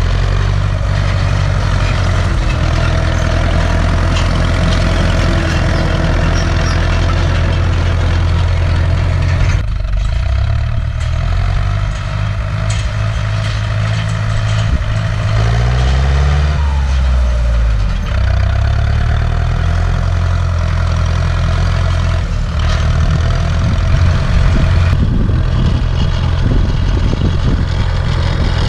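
Turbocharged Ursus C-360 tractor's four-cylinder diesel engine running steadily under load while rolling a field. The engine note shifts about ten seconds in, and around the middle the revs sag and pick up again.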